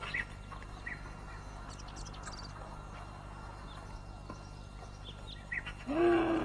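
Faint scattered bird chirps over a low steady hum. About six seconds in, a louder, short pitched call that rises and then holds.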